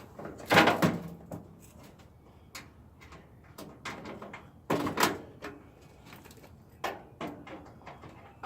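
Scattered clunks and knocks of metal parts being handled while an old appliance is taken apart for scrap, the loudest about half a second in and again about five seconds in.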